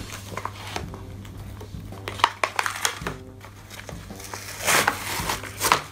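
Plastic toy packaging being handled and pulled open, crinkling and rustling with a few sharp crackles, loudest near the end.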